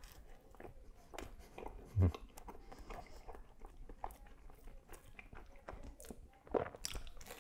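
Close-miked chewing of a mouthful of falafel waffle with lamb and cheese: soft crunches and small wet mouth clicks, with a low thump about two seconds in and a louder mouth sound near the end.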